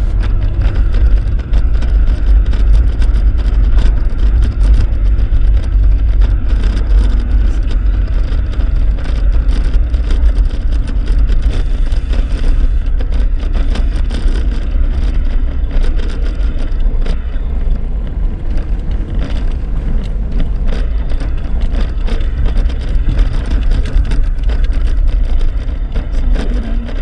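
Suzuki Jimny driving on an unpaved dirt road, heard from inside the cabin: a loud, steady low rumble of engine and tyres, with constant quick rattling from the rough surface.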